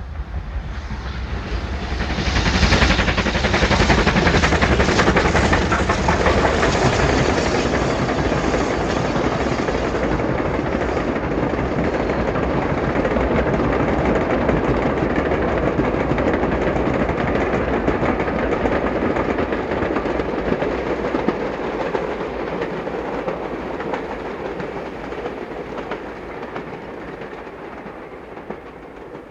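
Steam-hauled train running past on the rails, its wheels clattering over the rail joints. It grows loud within the first few seconds, holds, then slowly dies away near the end.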